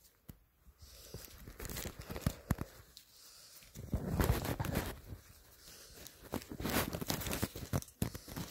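Handling noise: irregular rustling and light knocks of hands moving things about on fabric, loudest about four seconds in. No recorder notes are played.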